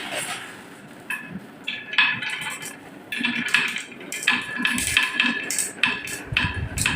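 Glass marbles rolling down a wooden marble-run track, clicking and clinking against each other and the wood in quick, irregular hits, some with a brief glassy ring. A low rumble joins near the end.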